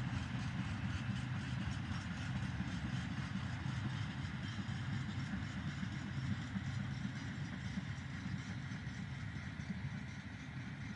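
Diesel-hauled freight train running past: a steady low diesel engine hum with the rolling noise of wheels on rail, easing off slightly near the end.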